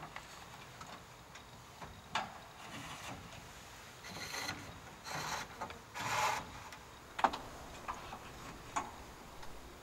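Wooden drawstop knobs of a large pipe organ being pulled out by hand one after another, giving about half a dozen short wooden scrapes and knocks as the stops for the piece are set.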